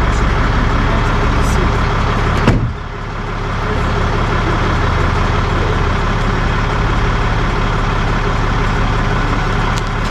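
Tow truck engine running with a steady low drone while the truck lifts a stranded car. A sharp knock comes about two and a half seconds in, after which the drone briefly drops and then builds back.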